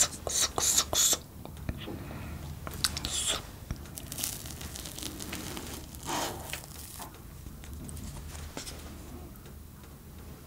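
Close-miked eating sounds of soft cream cupcakes: a quick run of sharp mouth and cup clicks about the first second, then scattered soft scrapes of a wooden spoon in a paper cup and chewing, over a low steady hum.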